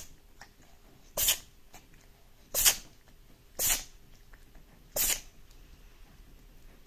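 A cat sneezing four times in a row: short, sharp sneezes a little over a second apart.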